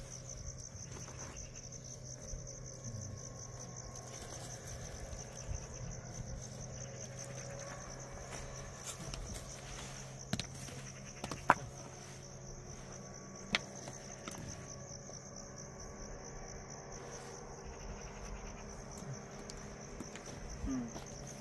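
Insects chirring in a steady, high, rapidly pulsing trill, with a few sharp clicks about halfway through.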